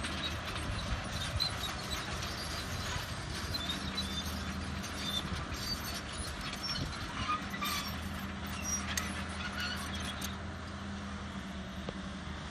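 Excavator diesel engine running steadily, with scattered short metallic squeaks and clanks over the top.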